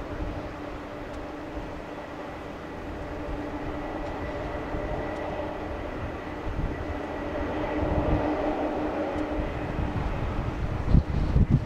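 Boeing 787 Dreamliner's Rolls-Royce Trent 1000 engines on final approach: a steady whine and rumble with a few held tones, growing louder as the airliner nears. Wind buffets the microphone near the end.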